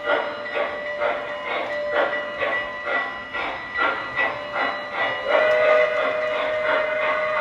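O scale model steam locomotive's onboard sound system: a steady chuff, about two to three a second, with its whistle blowing, held loud from about five seconds in.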